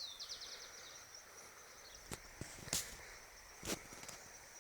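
Outdoor countryside ambience: a bird sings a quick trill of descending notes about a second long, over a steady high insect drone. A few short, sharp knocks come later, about two to four seconds in.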